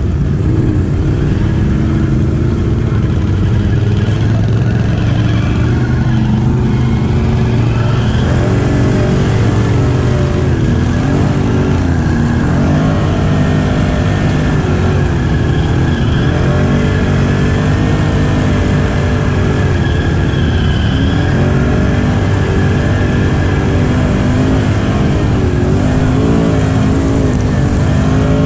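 ATV engine running under load through mud, its pitch rising and falling again and again as the throttle is worked.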